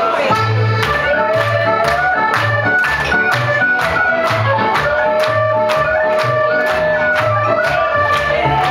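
Scottish ceilidh dance band music: a reedy, organ-like melody over a steady beat and pulsing bass notes, with one long held note in the middle.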